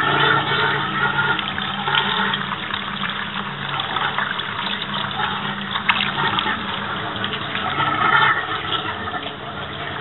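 Water running and splashing steadily as it pours into a tub and a plastic bowl, with a low steady hum underneath.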